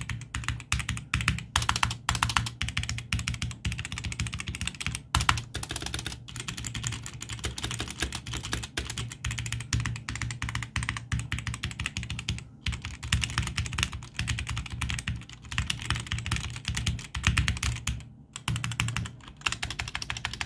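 Gamepower Warlock mechanical keyboard with Outemu red linear switches being typed on continuously, a fast clatter of keystrokes with a few brief pauses. The keys lack the sharp click of blue switches.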